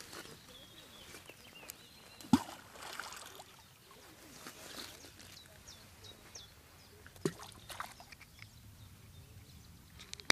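Riverside ambience: shallow river water trickling and lapping over pebbles, with faint high chirps and two sharp knocks, the louder one about two seconds in and another about seven seconds in.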